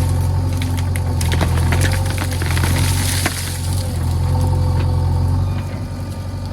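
JCB 3DX backhoe loader's diesel engine running steadily under load, with crunching and cracking from the bucket digging into the earth between about one and three seconds in. The engine eases briefly near the end.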